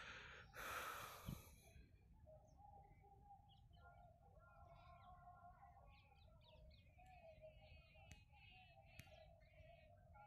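Faint birdsong of rapid repeated chirps and trills over a steadier, wavering call, with a brief rush of noise near the start.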